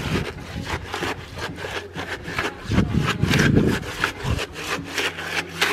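A stick stirring and scraping through stiff, dry concrete mix in a plastic bucket, in quick repeated strokes several a second. The mix sounds gritty and rasping because it is too thick and short of water.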